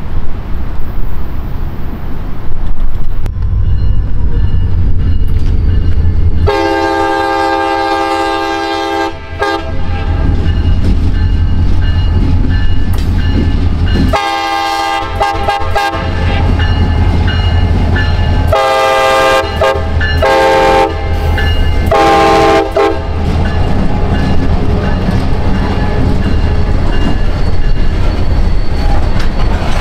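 A freight locomotive's air horn blowing five blasts over the loud, steady rumble of the passing train: two long blasts first, then three shorter ones close together.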